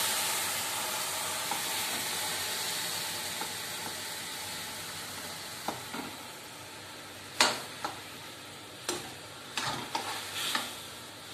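Jaggery melting in a steel kadhai with a little water just added, sizzling with a hiss that fades away over the first half. Then a slotted spoon stirring it, with several sharp metal clinks against the kadhai in the second half.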